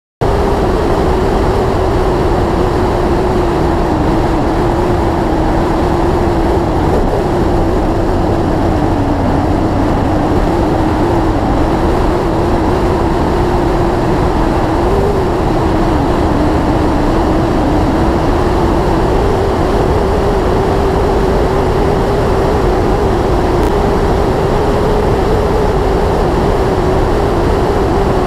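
Yamaha YZF-R6S sport bike's inline-four engine running at a steady speed, its note holding level with slight rises and dips in pitch. A heavy rush of wind and road noise runs under it.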